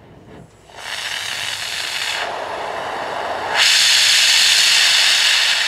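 Oxy-fuel brazing torch flame hissing. It gets louder in two steps, about a second in and again about three and a half seconds in, as the gas is turned up to set a flame with a strong excess of fuel gas for brazing aluminium.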